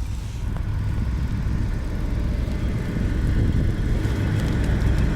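Low, steady rumble of a river tug's diesel engine as it tows a barge along, slowly growing louder.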